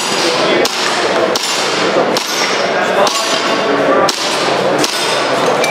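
Airsoft pistol firing a steady string of single shots, about one every 0.7 to 1 second, each a sharp crack in a reverberant hall.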